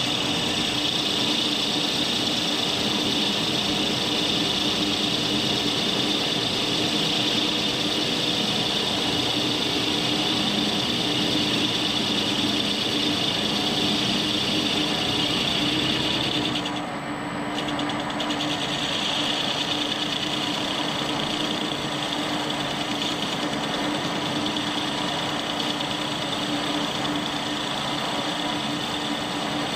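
Warco 280 metal lathe running steadily while turning a cast wheel rim: a constant motor and gear hum with a higher hiss over it. The hiss breaks off for about a second just past halfway, then returns fainter.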